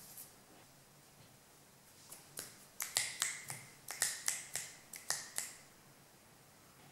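A person snapping their fingers over and over, about a dozen sharp snaps in quick, uneven succession over roughly three seconds, starting about two seconds in.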